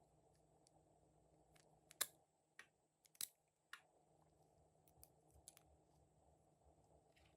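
Glossy slime being handled by hand, giving a few scattered short sticky clicks and pops. The two loudest come about two and three seconds in, over a faint hum.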